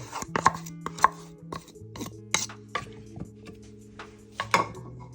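Irregular sharp knocks and clicks of kitchen utensils against bowls and containers as a chicken marinade is prepared.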